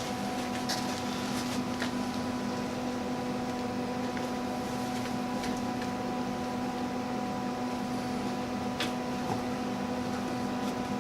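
A steady machine hum in a pitched, even drone, with a few faint clicks scattered through it.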